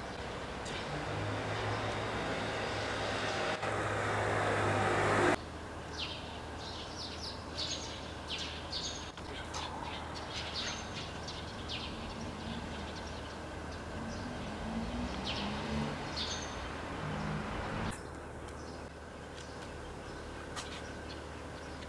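A rumbling vehicle noise with a low hum swells for about five seconds and cuts off suddenly. It is followed by a run of short, high bird chirps, scattered irregularly, that stop near the end.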